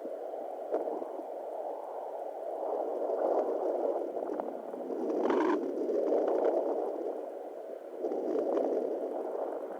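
Home fetal Doppler heard through its speaker: a whooshing, gurgling noise that swells and fades several times. About five seconds in there is a brief scratchy noise.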